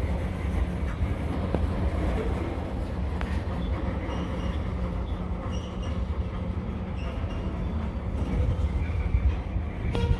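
Norfolk Southern freight train rolling by: a steady low rumble with a constant hum, and short faint high squeaks from the wheels scattered through it.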